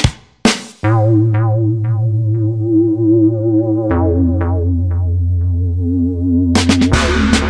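Background electronic music. A drum fill ends, then a held synthesizer chord over a deep bass plays with short plucked notes, the bass shifting down about four seconds in. The drum beat comes back near the end.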